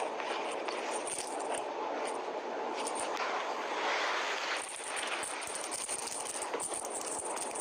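Rustling and crackling of bedding and a sheer ribbon being handled, with small clicks throughout.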